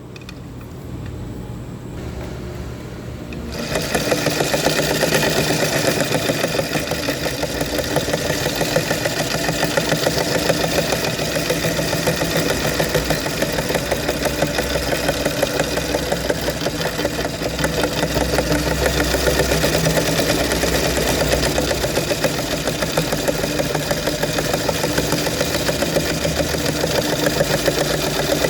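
Sewing machine running. It is quieter for the first few seconds, then stitches at a steady fast pace with a rapid, even clatter over a low motor hum.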